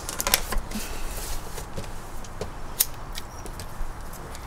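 Scattered light clicks and rustles of small objects being handled, with a sharp click about a third of a second in and another near three seconds.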